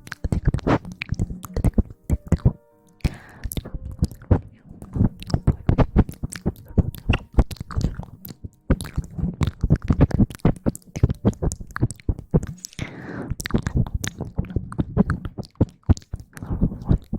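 Close-miked ASMR rustling: a dense, irregular crackle of scratches and crinkles right against the microphone, pausing briefly twice.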